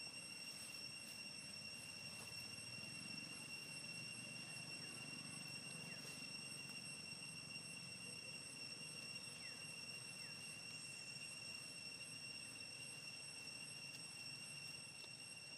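Faint outdoor ambience: a steady high-pitched whine over a low rumble, with a few faint short chirps near the middle.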